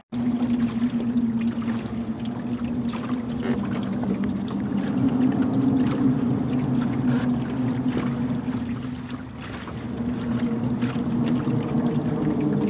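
Traffic crossing a steel-grid drawbridge deck overhead: a steady tyre hum held on a couple of pitches, dipping a little about nine seconds in, over wind and water noise.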